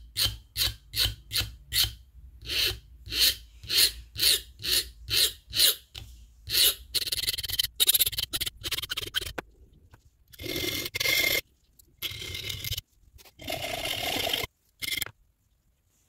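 Coarse side of a metal file rasping across the edge of a Victorinox Huntsman's small steel blade. It starts in quick, even strokes about two or three a second, then turns to denser scraping and a few longer strokes with pauses, and stops about a second before the end. This is the first coarse reshaping of an edge worn flat at the tip.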